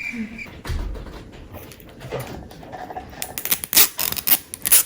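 Toy packaging being handled and torn at: light rustling, then a burst of sharp crinkling crackles in the last second and a half.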